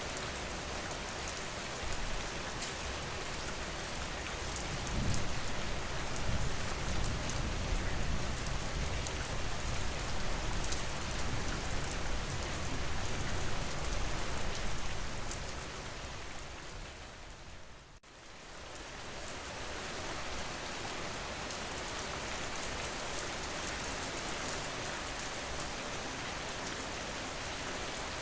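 Steady rain falling, a dense hiss with fine crackling drop ticks. A low rumble swells beneath it for several seconds in the first half. Just past the middle the rain fades almost out and then comes back, like the seam of a looped rain recording.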